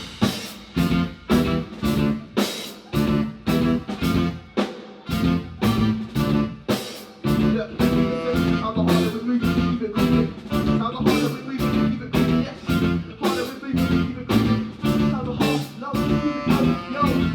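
Live band playing an instrumental groove: guitar over drum kit keeping a steady, quick beat, with a busy low bass line.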